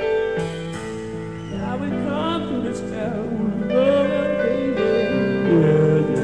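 Live progressive rock band music: held keyboard chords, joined about a second and a half in by a wavering, bending melody line that runs over them until near the end.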